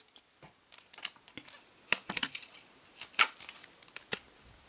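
Quiet hand-handling noise from a shrink-wrapped CD digipack and its cardboard box: scattered light clicks and taps, with more distinct ones about two and about three seconds in.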